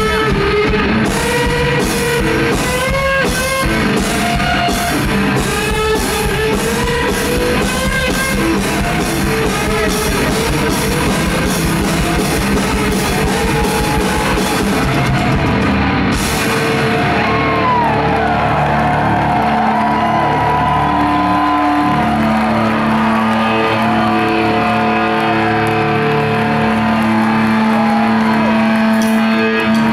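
Live rock duo playing loud: a hollow-body electric guitar and a drum kit. About halfway through the drums drop out, leaving the guitar alone on long held and bending notes. The drums come back in at the very end.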